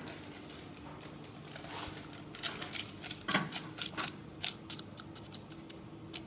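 Greaseproof paper crinkling and crackling as a cartouche is pressed down onto the surface of a béchamel sauce in a saucepan, in a run of quick, sharp crackles that thicken from about two seconds in.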